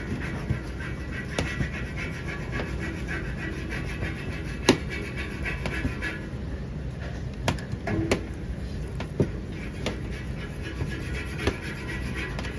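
Kitchen work sounds: a steady background hum with scattered sharp knocks and clicks, the loudest a little under five seconds in.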